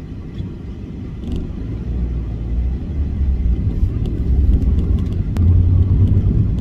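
Audi A2 driving: a low rumble of engine and road noise that grows steadily louder, with one sharp click about five seconds in.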